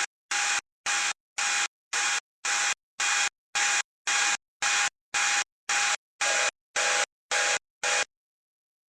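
Regular bursts of static-like hiss, about two a second, each cut off sharply into dead silence. The bursts stop suddenly about eight seconds in.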